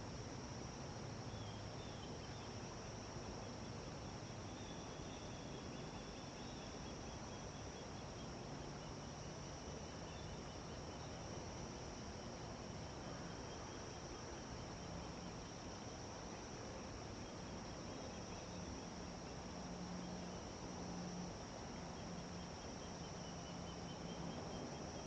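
Insects trilling steadily, a constant high-pitched tone that never breaks, over a low hiss.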